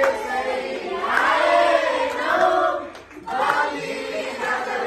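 A group of people singing a Deusi-Bhailo festival song together, one long phrase, a brief break about three seconds in, then the next phrase.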